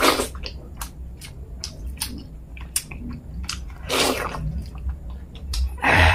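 Close-miked wet chewing and lip smacks of a mouthful of fish head curry with wheat dhido, eaten by hand. Many small clicks run throughout, with three louder wet bursts: one at the start, one about four seconds in, and one at the end.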